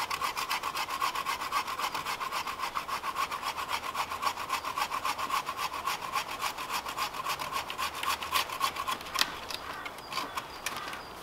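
Gerber Freescape folding bow saw with a 12-inch blade, cutting through a branch about three inches thick in quick, even push-and-pull strokes. The strokes stop about nine seconds in as the blade gets through, followed by a few small clicks.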